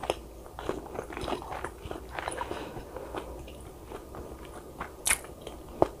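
A person chewing and crunching food in repeated moist, crackly bites. A sharp click about five seconds in is followed shortly by a duller one.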